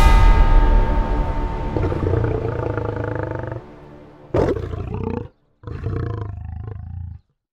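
Soundtrack music fades out on a held chord. A little past the middle a lion roars, starting suddenly, breaking off once and cutting off shortly before the end.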